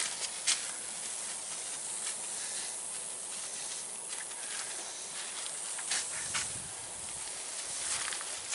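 Pump-up garden sprayer's wand spraying liquid: a steady hiss, with a few short clicks.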